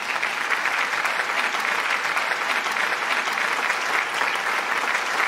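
Congregation clapping, a steady sustained round of applause.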